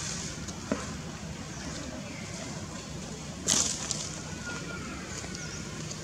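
Steady outdoor background noise with a low hum, a faint click just under a second in, and one brief loud noisy burst about three and a half seconds in.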